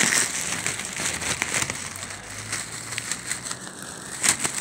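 Dried bunches of mountain tea crackling and rustling as they are stuffed by hand into a thin plastic carrier bag, the bag crinkling with them. There are sharper crackles near the end.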